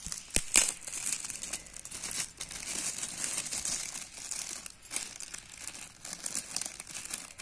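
Shiny blue metallic gift wrap crinkling and rustling as hands slowly unfold it, with a few sharp crackles in the first second.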